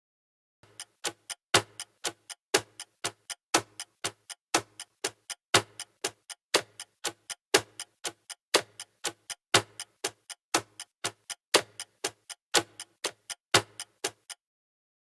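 Steady clock-like ticking: a louder tick about once a second with softer ticks between, stopping shortly before the end.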